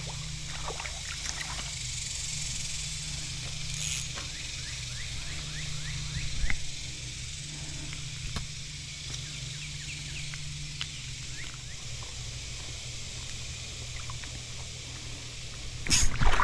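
Steady flow of shallow river water, with a single knock about six seconds in. Near the end comes a loud splash as a small fish is tossed back into the river.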